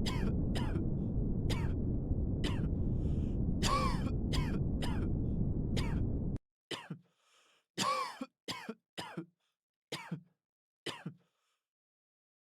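Repeated short coughs and throat-clearing, a dozen or so, played as simulated test-room noise over a steady low rumble. The rumble cuts off suddenly about six seconds in, and the coughs go on alone until about eleven seconds in.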